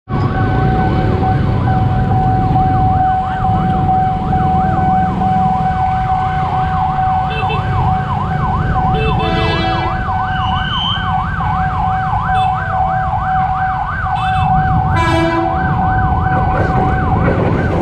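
Ambulance siren in a fast up-and-down yelp, about three cycles a second, over a steady tone and the rumble of traffic. A few short horn blasts cut in near the middle and later on.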